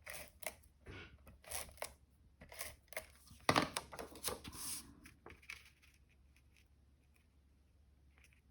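Paper and card stock being handled at a craft table: a quick run of short rustles and scrapes that dies away after about five seconds.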